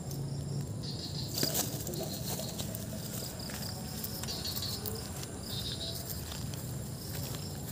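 Footsteps and rustling through wet grass and leaf litter with camera handling noise and scattered small clicks.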